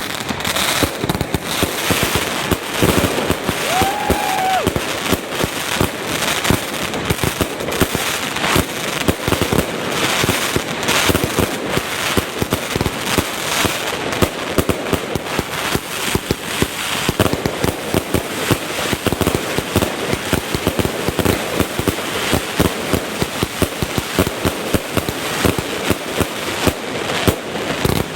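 Geisha 144-shot compound fireworks cake firing a rapid, unbroken string of shots and bursts, several a second.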